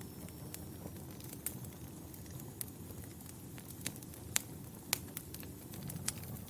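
Wood fire crackling in a fireplace: irregular sharp pops and snaps over a low, steady rumble of the flames, with the loudest pops a little past four seconds and about five seconds in.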